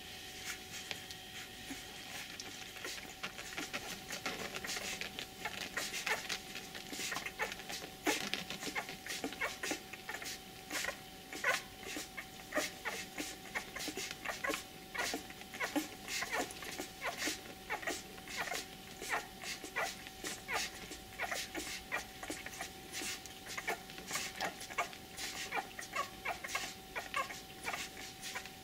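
Eight-day-old Australian Shepherd puppies suckling at their mother: a dense, irregular run of small wet smacking and clicking sounds, several a second, growing busier a few seconds in. A faint steady hum lies underneath.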